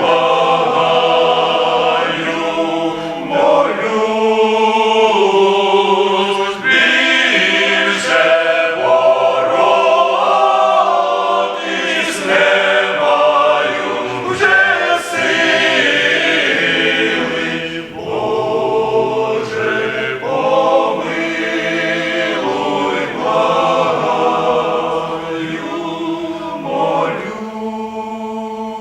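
Men's choir singing a Ukrainian hymn in several-part harmony, settling onto a long held chord near the end.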